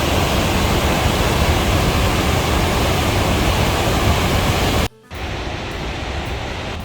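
Roar of the Tännforsen waterfall, a loud steady rush of falling water. About five seconds in the sound cuts out for a split second and resumes quieter.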